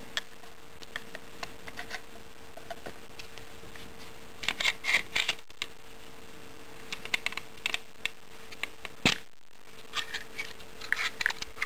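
Glock 19 pistol being reassembled by hand: scattered clicks, scrapes and rattles as the slide is worked back onto the polymer frame, in short clusters, with one sharp click about nine seconds in.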